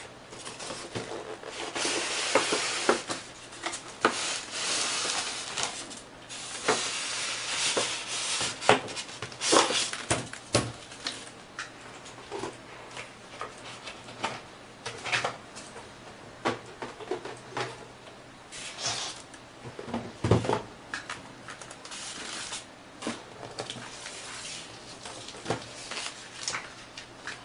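Cardboard box and foam packaging being handled: stretches of rubbing and scraping as the foam display tray slides out of its cardboard sleeve, longest in the first ten seconds, with many sharp taps and knocks throughout.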